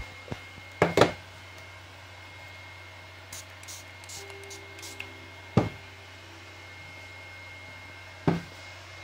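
Small bottles being handled and set down on a tabletop: a few sharp knocks, two close together about a second in, one in the middle and one near the end, over a steady low hum.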